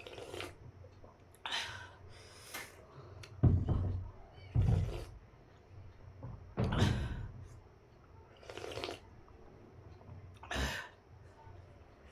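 Close-miked eating of noodle soup: a string of short slurps and mouth sounds, about one every second or two, with a few heavier dull thumps among them.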